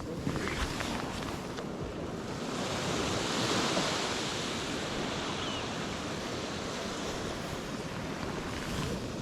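Ocean surf on the shore, a wave breaking and washing up about three seconds in, with wind buffeting the microphone.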